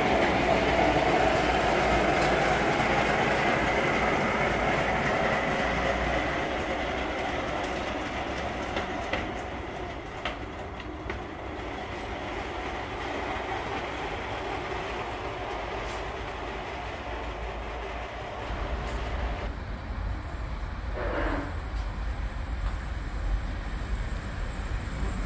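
Train running on the rails: a steady rumble with wheel-on-track noise that eases off over the first several seconds and then holds lower. About three quarters of the way in there is a brief falling tone.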